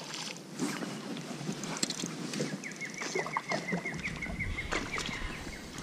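A hooked flathead splashing at the surface beside the boat, with rod and boat handling knocks, then a fast, even run of ticks from about halfway through, and a low wind rumble on the microphone in the last couple of seconds.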